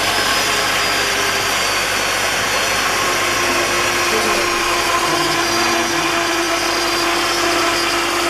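Thread-cutting machine running steadily, its motor and drive making a constant mechanical whir with a few steady tones; a lower steady tone joins about three seconds in.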